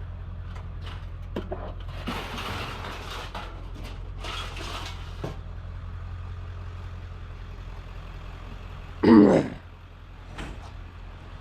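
Diesel truck engine idling with a steady low hum, while thin, flimsy scrap sheet metal rattles and scrapes in short bursts as it is handled and tied down. A brief, loud voice-like sound comes about nine seconds in.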